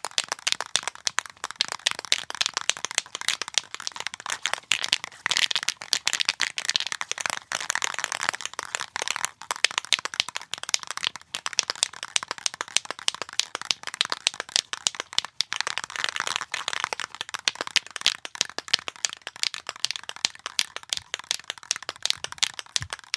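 Aerosol spray paint can shaken continuously, the mixing ball rattling and clacking inside it in rapid, steady strokes.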